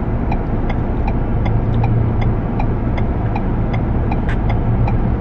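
Car engine idling inside the cabin: a steady low hum, with a faint quick ticking over it.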